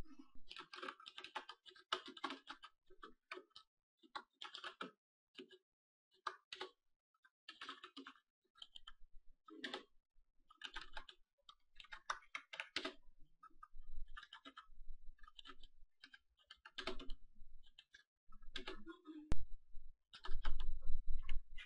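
Typing on a computer keyboard: irregular runs of keystroke clicks with short pauses between them, and a few heavier knocks near the end.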